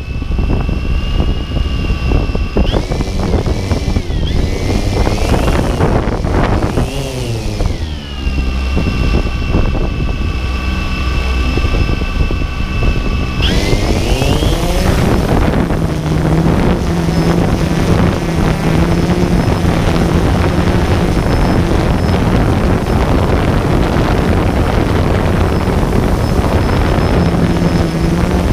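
DJI Phantom 2 quadcopter's electric motors and propellers heard from its own gimbal camera. For the first half they whine at low speed, the pitch stepping up and down. About halfway through they spin up sharply, and a loud steady rush of propellers and downwash follows as the drone readies to lift off.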